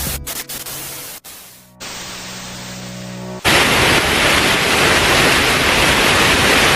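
Background music broken by abrupt edit cuts, then about three and a half seconds in a sudden switch to a loud, steady rush of falling water: the waterfall in heavy rain.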